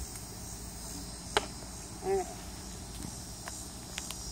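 Steady high-pitched chorus of insects. A single sharp click comes about a second and a half in, and a short vocal sound follows just after.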